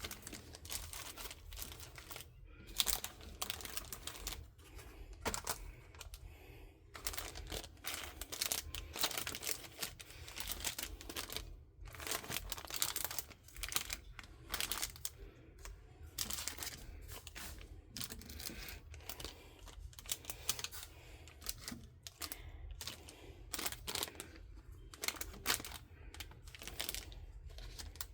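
Small plastic tools and packets being handled and set into a plastic storage organiser: irregular clicks and taps with short rustles of packaging.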